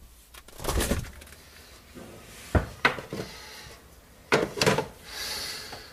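Refrigerator door being handled and opened, with several clunks and rattles and a softer rustle near the end.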